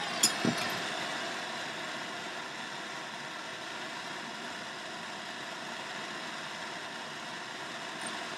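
Handheld gas torch flame hissing steadily while it heats the aluminium compressor wheel so the wheel expands and slides off the turbo shaft. Two sharp clicks come about a quarter and half a second in.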